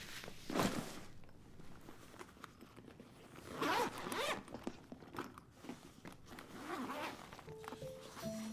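A zipper on a bag is drawn open in several short pulls, the longest about three and a half seconds in, with soft fabric handling between them. A few piano notes come in near the end.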